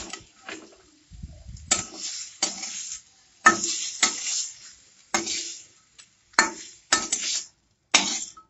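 Metal spatula scraping and clanking against a kadai as fried green banana pieces are scooped out, about a dozen separate scrapes, several with a short metallic ring.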